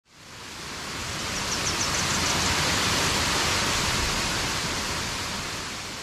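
Waterfall pouring over a concrete dam wall into a rocky pool: a steady, full rush of falling water that swells in over the first second and fades toward the end.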